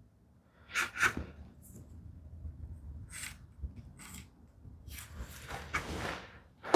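Pencil scratching a line on wood along a square, with short scrapes and a couple of sharp knocks from handling the tools about a second in.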